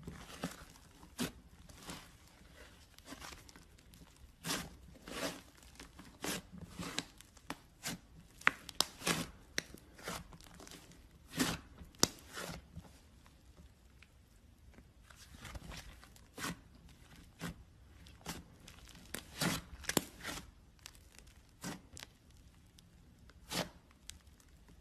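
Glitter slime being squeezed and stretched by hand, giving irregular sticky pops and clicks as air pockets in it burst.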